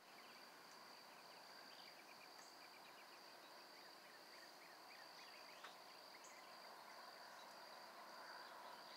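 Faint outdoor ambience: a steady, high insect trill, with scattered faint bird chirps in the first few seconds.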